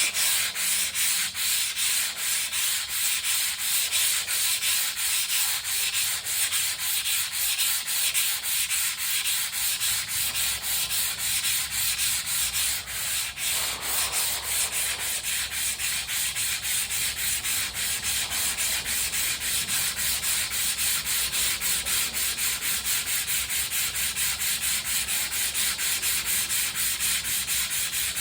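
Sandpaper rubbed back and forth over a spoiler in quick, even strokes, a steady rhythmic scratching hiss at about three to four strokes a second.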